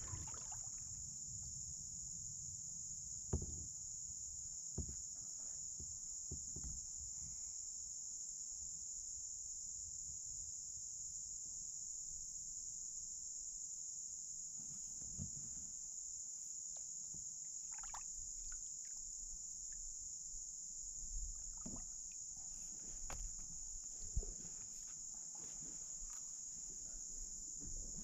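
Steady, unbroken high-pitched drone of an insect chorus from the riverbank trees. A few soft knocks and splashes from kayak paddling come through now and then.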